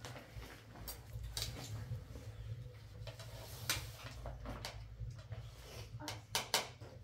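Irregular clinks and knocks of hard objects being handled, over a steady low hum.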